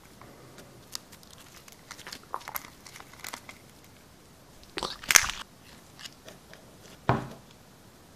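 Orange slime being pulled and stretched out of a plastic cup by hand, making sticky squelches and small clicks, with the loudest burst about five seconds in and another about seven seconds in.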